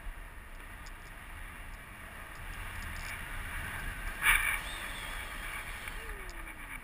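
Wind rushing over the microphone during a tandem paraglider flight: a steady hiss, with one brief louder gust about four seconds in.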